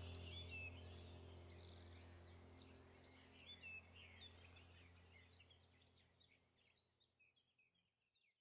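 Faint ambient background track: a low steady drone with bird chirps over it, fading away to silence near the end.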